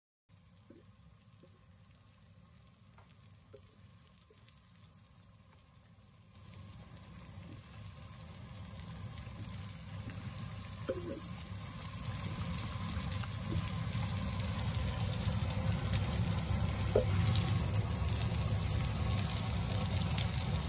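Pots of fish curry simmering and a pan of fried fish sizzling on a stove, an even bubbling hiss that is faint at first and gets louder after about six seconds, with a few light clicks.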